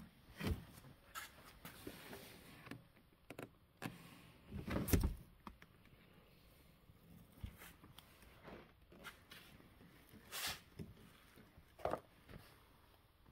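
Handling noises: scattered light knocks, taps and rustles, the loudest a longer rustle about five seconds in.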